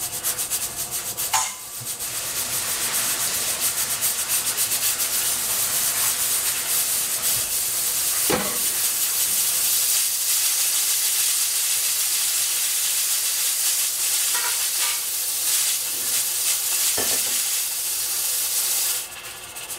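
Pressure cooker at full pressure on high heat, venting steam through its lid valve with a loud, steady hiss. It flutters for the first second or so and drops off sharply near the end.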